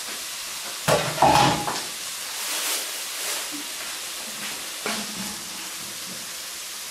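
Chopped onion and grated garlic sizzling steadily in hot oil in a nonstick pan. A few loud sharp knocks from kitchen utensils come about a second in, and a lighter one just before five seconds.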